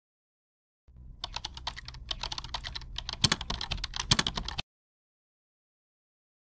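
Computer keyboard typing sound effect: a rapid, irregular run of key clicks that begins about a second in, lasts about three and a half seconds and cuts off suddenly.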